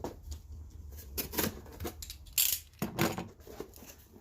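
Boxes of piston-and-connecting-rod assemblies being opened by hand: irregular rustling of packaging with scattered clicks and knocks, the loudest about two and a half and three seconds in.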